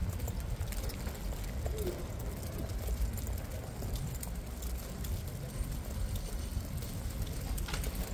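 Pram wheels rolling over pavement, a steady low rumble, with faint street ambience and a short clack near the end.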